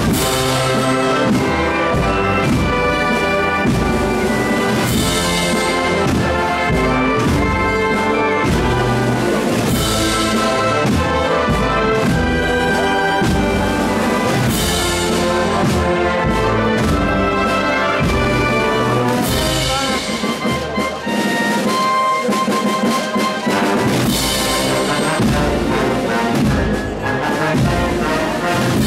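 A processional band of brass and drums plays a Spanish Holy Week processional march (marcha procesional) live, with the brass carrying the melody. Percussion crashes hit every few seconds, and the music thins out into a softer passage about two-thirds of the way through.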